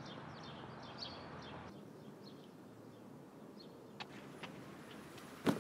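Quiet outdoor ambience with faint, scattered bird chirps, most of them in the first couple of seconds, and a short thump near the end.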